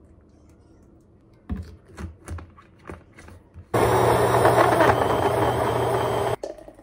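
Personal bullet-style blender motor running for about two and a half seconds, blending fruit, greens and juice into a smoothie, then cutting off sharply. Before it starts there are a few short knocks and clicks.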